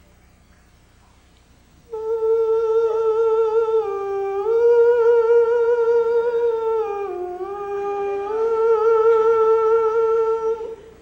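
A single male voice humming a slow, wordless high melody with vibrato, a cappella. It comes in about two seconds in on a held note, dips lower twice and climbs back each time, and stops near the end.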